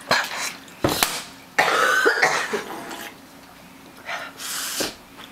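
A young woman coughing in a few short fits over the first three seconds, her throat irritated by very spicy food.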